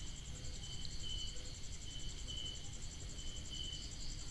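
Faint insect chirping: a steady high trill, with short chirps repeating about every two-thirds of a second.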